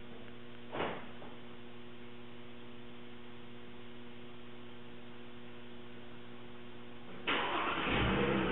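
Steady electrical hum with a single click about a second in. Near the end, the 2011 Mercedes-Benz GLK's engine is started by remote from the factory key fob: a sudden loud crank, then the engine catching.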